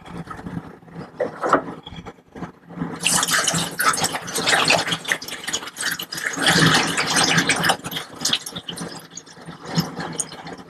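Xylene poured from a plastic gallon jug through a funnel into a tissue-processor reagent bottle. After about three seconds of quieter handling, the pour starts as an uneven rush of liquid splashing into the bottle.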